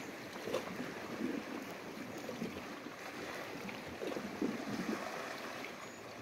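Small sea waves washing over and lapping against shoreline rocks: a steady wash of water with a few gentle surges.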